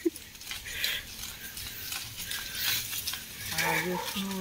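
Mango tree leaves rustling and crackling as a hand moves through the branches. Near the end a low, held humming voice begins.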